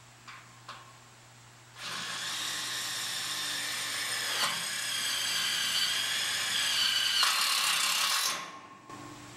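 Power drill running at speed, a steady high whine lasting about six seconds that shifts a little in pitch and then stops, after two light clicks.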